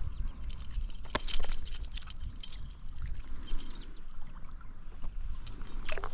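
Splashing and handling noise as a small brown trout is reeled in and landed from a stream: a low rumble on the action-camera microphone with scattered clicks and splashes, the sharpest a little over a second in.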